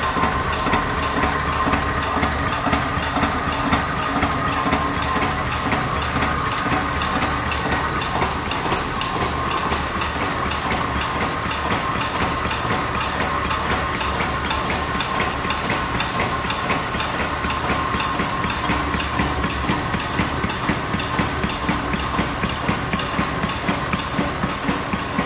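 Onda UV flatbed label printing and die-cutting machine running, its press cycling in an even rhythm of about two to three strokes a second over a constant mechanical hiss and a steady high hum.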